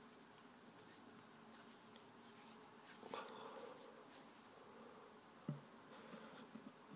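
Near silence, with faint soft rustles of hands kneading and rolling play dough, and one light tap about five and a half seconds in.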